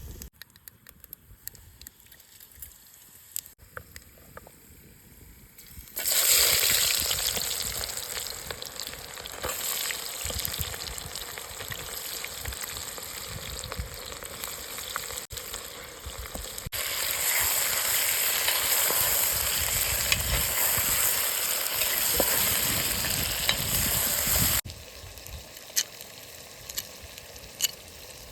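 Food frying in hot oil in a pan: a loud sizzle starts suddenly about six seconds in, eases, grows louder again a little past the middle, and stops abruptly near the end. Small clicks and taps come before and after it.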